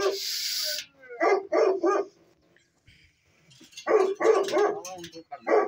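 Bully-type dogs barking behind a metal gate: three short barks, a pause, then a quick run of four barks and one more near the end. A brief hiss-like rush of noise comes first.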